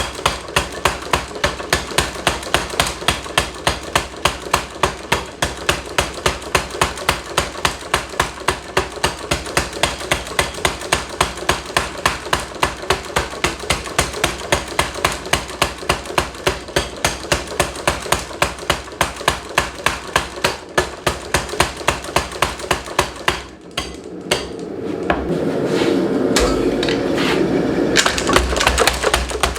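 Power hammer striking a bar of hot square steel in a fast, even rhythm of a few blows a second, drawing out a taper. The blows stop about three-quarters of the way through, and a steady rushing noise with a low hum rises in their place.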